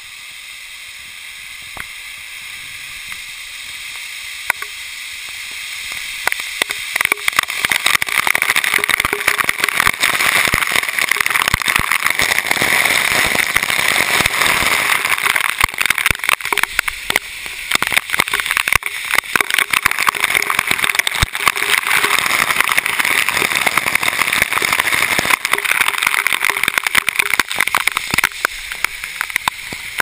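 Heavy spray from a tall waterfall rushing and crashing, with water drops striking the GoPro in dense rapid clicks. It grows louder over the first several seconds as the camera moves into the falls, and eases a little near the end.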